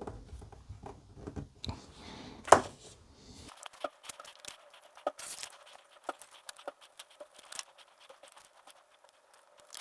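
Small clicks, taps and rustles of hands handling the plastic parts and rigging line of a model kit on a workbench, with one sharp click about two and a half seconds in.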